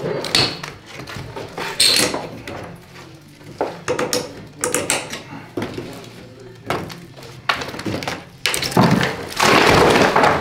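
Claw hammer knocking and prising at old plaster coving along a ceiling, a run of irregular knocks and scrapes. Near the end a loud crash of plaster breaking away from the lath and falling, lasting about a second and a half.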